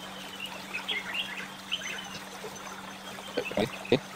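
Birds chirping in the background over a steady low hum, with a few sharp knocks near the end as the pipe is handled.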